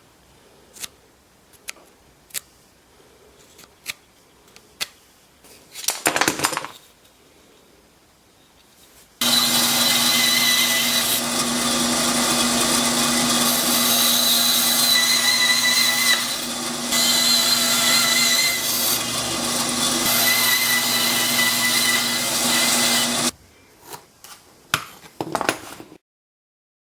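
Bandsaw running and cutting an oak workpiece: a steady hum with the rasp of the blade, starting abruptly about nine seconds in, lasting about fourteen seconds and stopping abruptly. Scattered light knocks of the wood being handled come before and after it.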